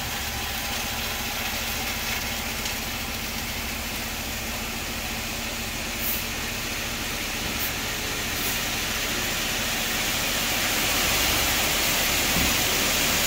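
Dump truck's diesel engine running while its raised bed pours out a load of red cinders, the steady rush of sliding cinders growing louder in the second half.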